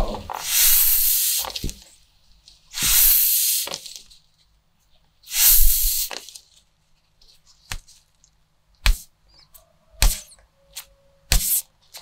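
Hollow vinyl squeeze toys hissing as gloved hands squeeze the air out of them: three long hisses in the first half. In the second half come a few short, sharp clicks.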